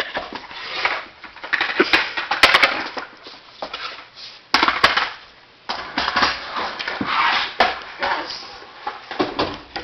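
Skateboard rolling on a concrete floor, the wheels running in stretches, with several sharp clacks of the deck striking the floor from ground tricks.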